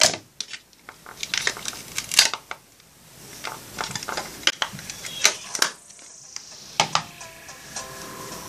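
Clicks and clacks of a black plastic makeup compact being handled and closed. Faint music with a few held notes comes in about two-thirds of the way through.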